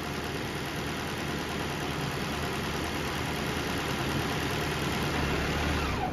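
2024 Toyota Prius's four-cylinder engine idling steadily in maintenance mode while its cooling system is bled, then shut off at the very end with a short falling whine as it winds down.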